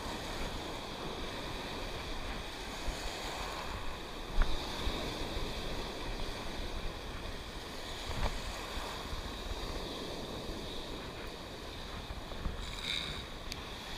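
Sea surf washing and breaking in the shallows, a steady rush of water, with wind on the microphone and a couple of brief knocks.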